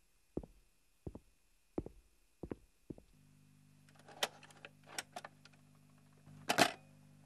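Footsteps on a hard floor, about one every 0.7 s, stopping about three seconds in. A record player's motor then starts with a steady low hum, followed by a few clicks from its controls and a thump near the end as the tonearm is set onto the record.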